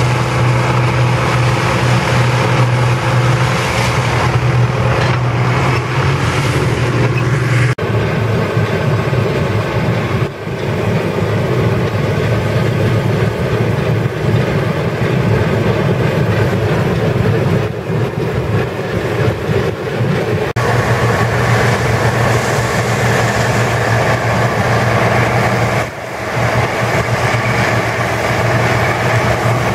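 A diesel tractor engine running steadily with a strong low hum. About eight seconds in it gives way to a Bizon Z056 combine harvester running while cutting wheat, its engine and threshing gear making a continuous mechanical din.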